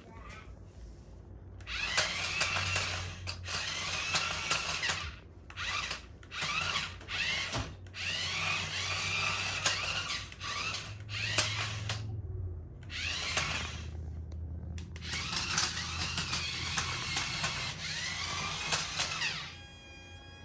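Small electric motor and plastic gearbox of a battery-powered toy RC car, whirring in repeated bursts of about half a second to four seconds as it is driven. The whine rises and falls with the throttle, and there are short pauses between runs.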